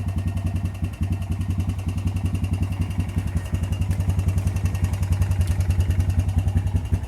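2005 Honda Recon ATV's single-cylinder four-stroke engine idling steadily just after a cold start, with engine noise that the owner puts down to a timing chain and oil pump chain that need replacing.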